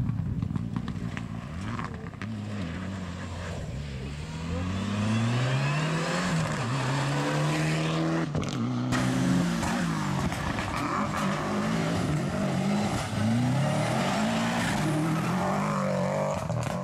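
Rally cars driven flat out, engines revving up and dropping back again and again through gear changes, with tyre and gravel noise over them; several passes follow one another.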